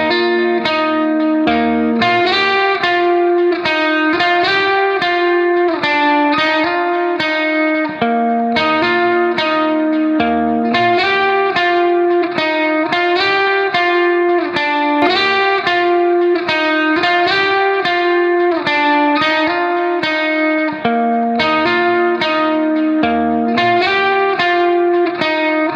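Background music: a plucked guitar playing a steady melody of evenly spaced notes over held chords.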